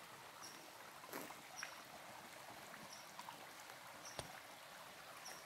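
Faint, steady rush of a flowing creek, with a short high chirp recurring every second or two and a few scattered light clicks.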